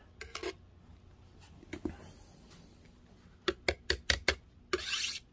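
Light clicks and taps of handling, a few at first, then a quick run of about six about three and a half seconds in, followed by a short rustle near the end.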